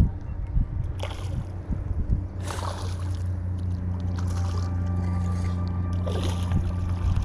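Spinning reel being cranked steadily as a hooked bass is reeled in, a constant low whir, with a few short splashes from the fish at the surface.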